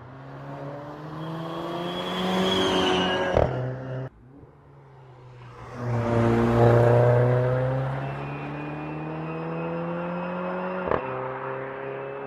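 Mercedes A45 AMG's turbocharged four-cylinder engine accelerating hard, its pitch rising steadily, with a sharp crack about three and a half seconds in and a sudden cut about four seconds in. It comes back loudest around six to seven seconds in, then climbs in pitch again through a long pull, with another short crack near the end.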